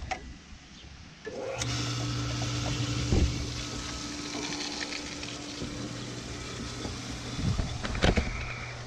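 Above-ground pool pump motor switched on about a second in, then running with a steady electric hum over a hiss. A few sharp knocks sound over it, the loudest near the end.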